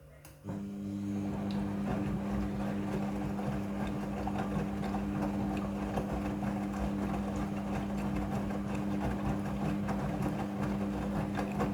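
Midea front-loading washing machine running with a steady electric hum and a rough whirring noise, switching on abruptly about half a second in.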